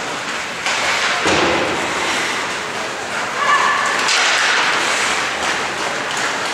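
Ice hockey play on an indoor rink: skates scraping over the ice, with sharp knocks of sticks, puck and boards about a second in and again at about four seconds. It all echoes in the large arena.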